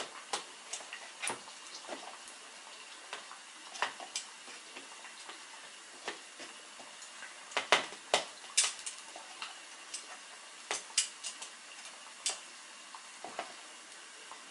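Battered cookies frying in hot oil in a saucepan: a steady sizzle with scattered sharp clicks, loudest in a cluster about eight seconds in.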